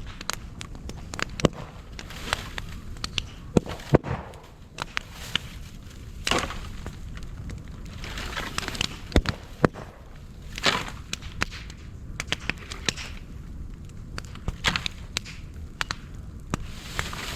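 Thick moso bamboo burning in an open fire, crackling with irregular sharp pops as the closed culm sections burst, and a few short hissing bursts.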